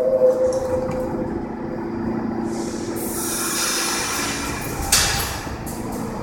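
R46 subway car at the platform: the end of its two-tone pre-GOH door chime in the first moments, then a steady hum, a high hiss coming in about three seconds in, and a single thud near five seconds in as the doors shut.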